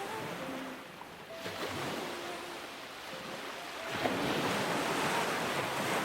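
Stormy sea: waves surging with wind, the surge swelling louder about four seconds in. Soft music notes play underneath.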